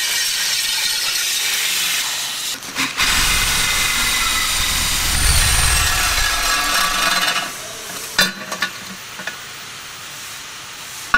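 Angle grinder with a cutoff wheel slicing through a cast-aluminum GM 8.1 big-block intake manifold, a steady high hiss; a little over seven seconds in the grinder stops and winds down. A few light knocks follow as the cut-off top of the manifold is lifted free.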